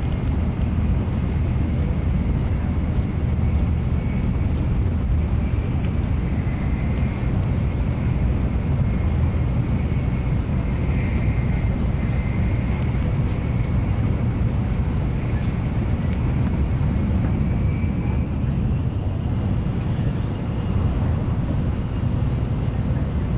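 Steady low rumble of a Shinkansen super express running at speed, heard from inside the passenger cabin. A faint high whine wavers through the middle of the stretch.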